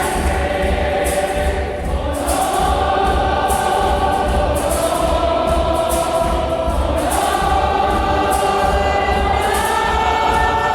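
Background music: a choir singing long held notes over a steady beat.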